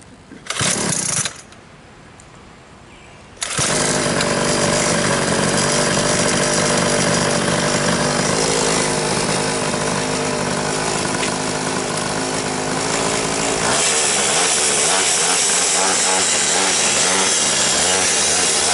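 Small engine of a home-built quarter-scale RC car: a short burst as it briefly catches about half a second in, then it fires up about three and a half seconds in and keeps running loud and steady, changing its note slightly around fourteen seconds in.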